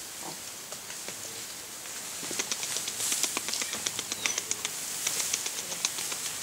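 Bamboo leaves rustling and crackling in quick, irregular clicks as a golden monkey grabs and strips them to feed, starting about two seconds in, over a steady hiss of forest background.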